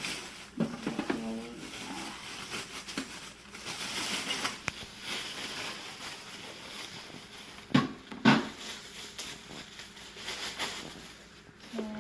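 Plastic parts of a new single-serve coffee maker being handled during unboxing: rustling and light knocks, with two sharper knocks close together about eight seconds in.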